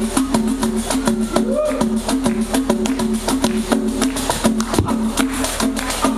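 Live Brazilian folk music from a pandeiro and clog dance duo: fast, dense percussive strokes over a short repeating pitched figure.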